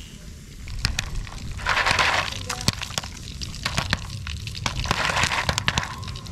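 Foil pan of popcorn shaken over a wood campfire: scattered sharp pops as the kernels burst, mixed with the crackle of the burning wood, and two short swells of rattling from the shaking, about two and five seconds in.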